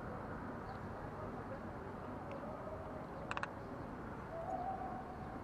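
Steady outdoor background hum, mostly traffic from the riverside road, with three quick sharp clicks a little past the middle and a faint drawn-out tone near the end.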